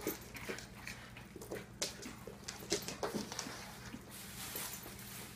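Dogs moving about on a hardwood floor: scattered light clicks and taps of claws and paws.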